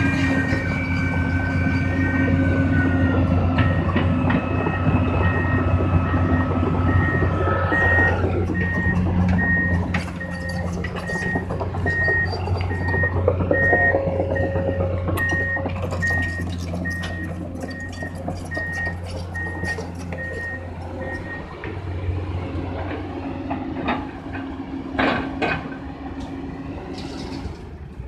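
Komatsu PC200-8 hydraulic excavator's diesel engine running while a backup alarm beeps steadily about twice a second; the beeping stops about twenty seconds in. Metallic clanks and knocks come through in the second half.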